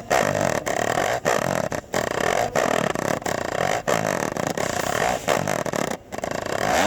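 Cat purring sound effect: a continuous buzzy purr that pulses in cycles of a little over half a second, cutting off suddenly near the end.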